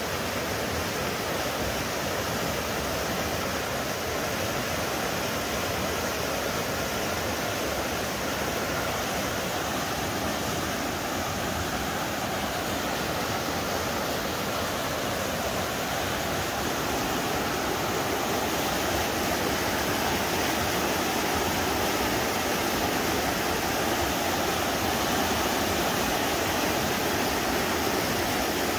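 A river's rushing water: a steady, even wash of noise that holds without a break.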